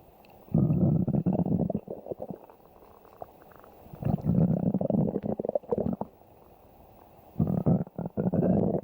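A person's stomach growling in three stretches of one to two seconds each, with quieter gaps between them.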